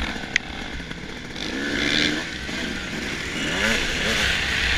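2005 Suzuki RM250's 250 cc two-stroke single engine heard from on board, revving hard as the bike accelerates, its pitch climbing and dropping a few times. There is a sharp click near the start.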